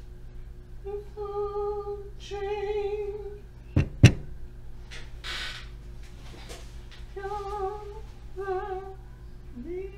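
A woman's voice singing a slow tune in long, steady held notes with short gaps between them. About four seconds in there are two sharp clicks close together, the loudest sounds, then a short hiss.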